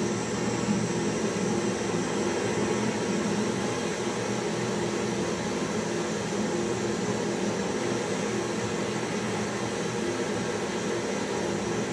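Butane cartridge torch flame hissing steadily as it heats the metal pot of a small traditional popcorn machine.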